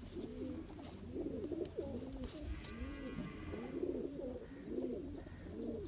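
Several domestic pigeons cooing, their low rolling coos overlapping one after another.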